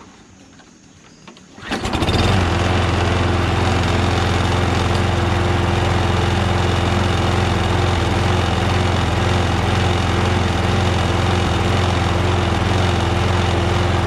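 Toro Recycler Personal Pace lawn mower pull-started: a pull on the recoil cord about a second and a half in, the engine catches at once and runs at a steady speed.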